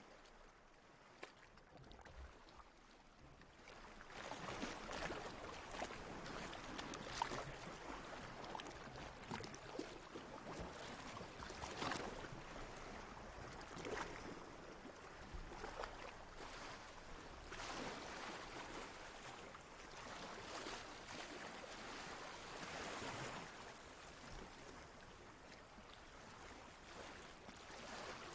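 Water lapping and sloshing in gentle, uneven surges, with small splashes; it grows louder about four seconds in.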